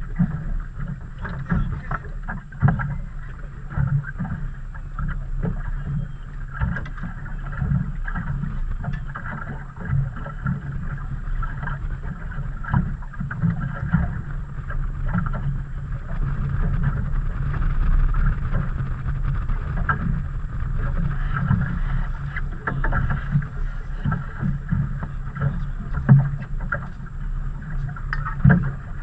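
Water slapping against a small fishing boat's hull and wind, with frequent short knocks and clatters of the boat and gear.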